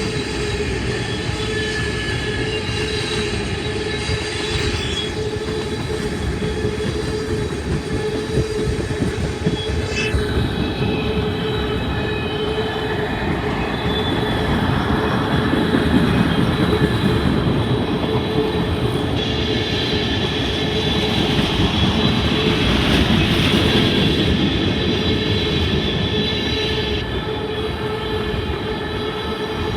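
Train cars rolling past steadily, a continuous rumble with sustained high-pitched squealing from the wheels on the rails. It swells louder about halfway through and again a few seconds later.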